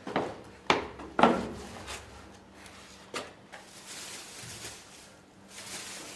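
A few sharp knocks and clatters of handled wooden objects, echoing briefly in a small room, the loudest two about a second in, then a softer knock and a soft rustling hiss.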